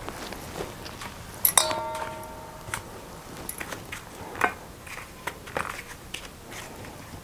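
Hands pressing brinjal slices into dry semolina and setting them on stainless-steel plates, giving soft taps and scrapes. About a second and a half in, a steel plate is knocked with a sharp clink and rings on for about a second.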